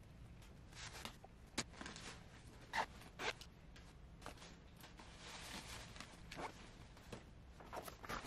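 Things being handled and packed into a soft suitcase: fabric rustling and light clicks and knocks, with a zip pulled for about a second around the middle.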